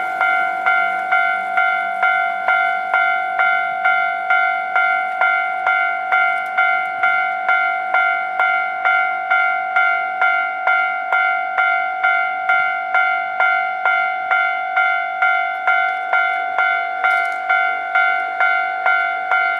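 Japanese railway level-crossing warning bell ringing in a steady, even 'kan-kan', just under two strikes a second, each strike a bright pitched ring that carries into the next. It signals that a train is approaching the crossing.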